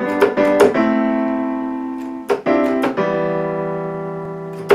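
Piano chords played on a keyboard: a few quick notes, then chords struck and held, each slowly fading before the next one, about every second and a half.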